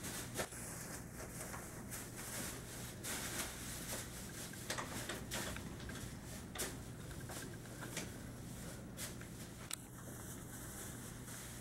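Quiet indoor room tone with a steady low hum and hiss, broken by scattered light clicks and taps from handling the camera as it zooms and pans.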